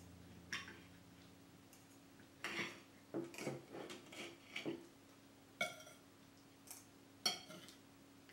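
Knife and fork clinking and scraping against a ceramic plate as a buckwheat galette is cut. There is a single click about half a second in, a run of scrapes and clinks in the middle, then a few sharp ringing clinks, the loudest near the end.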